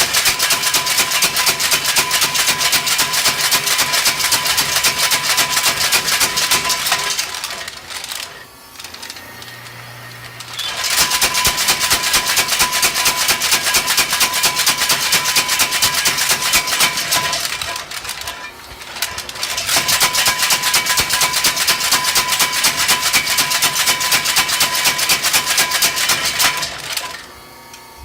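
Blacksmith's power hammer pounding in fast repeated blows, in three long runs broken by two short pauses and stopping near the end.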